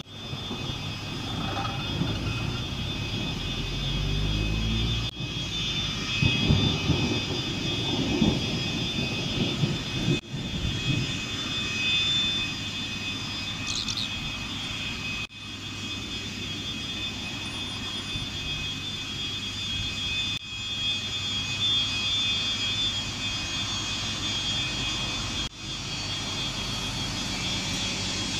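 An-148 airliner's twin turbofan engines whining steadily at low power as it rolls along the runway and taxis, with a low rumble beneath the whine.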